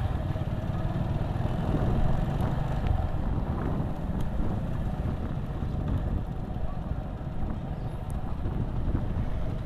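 Motorcycle engine running steadily while riding along, with wind rushing over the microphone.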